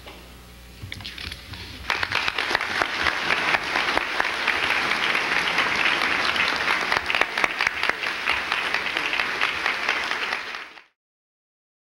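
Audience applauding: a few scattered claps about a second in, swelling a second later into full, dense applause that cuts off abruptly near the end.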